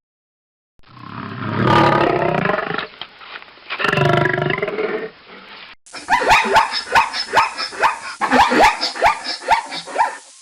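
Lion roaring: two long, deep roars, then a run of short grunts at about two a second.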